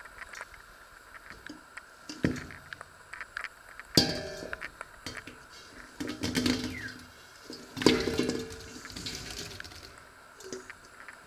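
Halved plums tipped from a stainless steel bowl into a large stainless steel pot: wet fruit slides and tumbles onto the metal, with a few sharp metal knocks as the bowl hits the pot.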